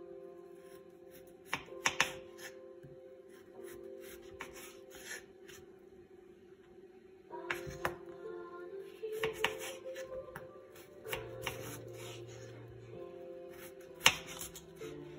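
Kitchen knife slicing peeled raw potatoes on a wooden cutting board, the blade knocking sharply on the board several times, loudest near the end. Soft background music with held notes plays under it.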